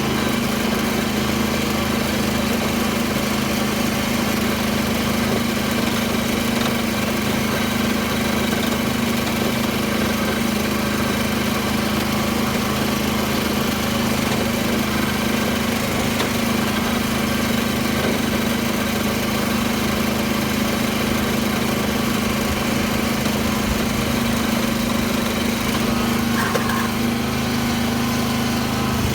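Small farm tractor's engine running steadily at a constant speed while tilling a field, with an even hum that does not change.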